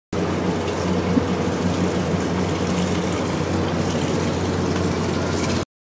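Water from a garden hose pouring steadily into a large aluminium stockpot, a continuous rushing fill with a low hum under it.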